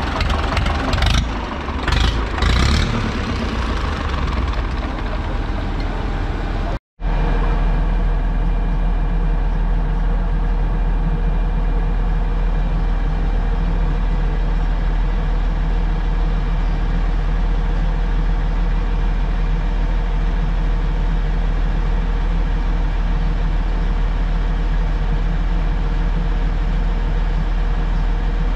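Diesel farm machinery engine running, with a few short knocks in the first three seconds. About seven seconds in, the sound cuts off for an instant, and a steady, deeper engine drone takes over and runs on evenly.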